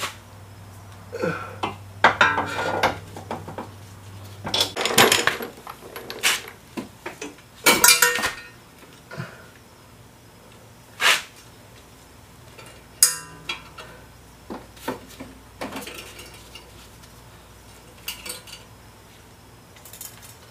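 Metal suspension parts and hand tools clinking and clanking irregularly while a coilover and its brake line bracket are fitted at a car's front wheel hub, with a few sharper knocks spread through.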